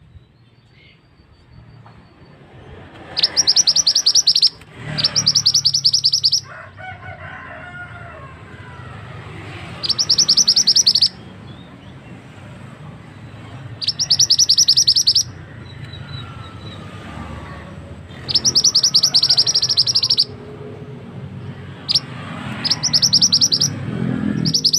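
Male flowerpecker (the 'mandi darah' or 'mantenan') calling as a lure recording: seven bursts of rapid, high-pitched chipping notes, each about a second long and a few seconds apart, over a low background hum.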